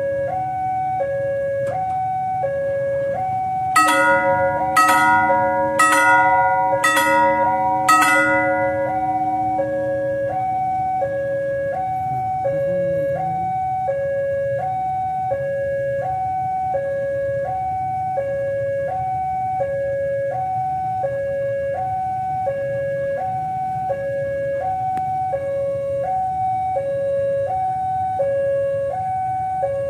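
Railway level-crossing warning alarm: an electronic two-tone signal alternating low and high about once a second. Between about 4 and 8 seconds in, five ringing bell strikes about a second apart sound over it.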